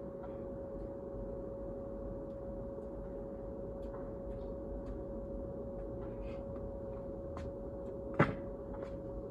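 Clothes dryer's exhaust blowing out through the outside dryer vent: a steady hum with one pitched tone over a low rumble. Scattered faint clicks, and one sharp knock about eight seconds in.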